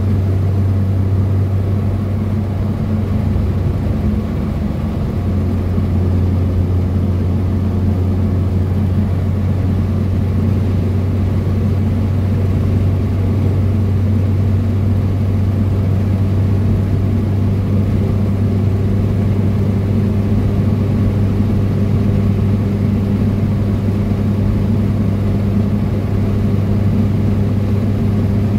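Renault 4's four-cylinder engine droning steadily at cruising speed, with tyre and road noise. The drone dips and shifts briefly about four seconds in, then holds steady.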